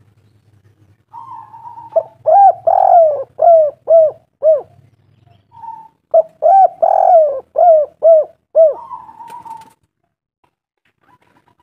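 Spotted dove cooing: two phrases of about six short, arched coo notes each, with a softer, steadier higher note before and after each phrase.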